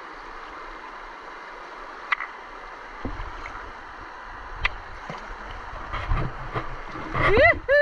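Shallow river water rushing steadily over rocks, with sloshing and splashing from about three seconds in as men wade through it, and two sharp ticks. Near the end a man lets out a short high whooping cry.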